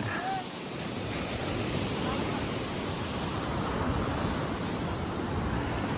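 Ocean surf washing on the beach with wind on the microphone, a steady even rush.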